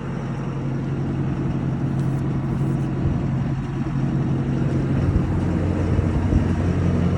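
Tractor engine idling steadily, a constant low hum.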